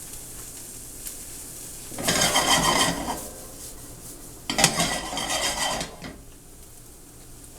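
A utensil scraping and clattering against a frying pan in two spells of about a second each, stirring the peppers and onions for an omelette. Between the spells the vegetables are frying with a faint steady sizzle.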